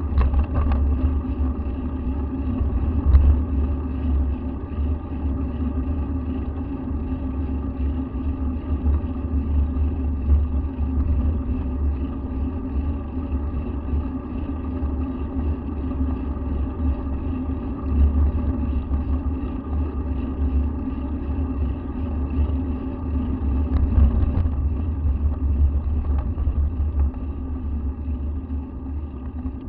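Steady low rumble of wind and road vibration on a bicycle-mounted action camera while riding along a cycle lane.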